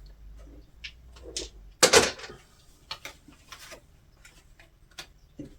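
Tarot cards being handled and drawn: scattered light taps and clicks, the loudest about two seconds in.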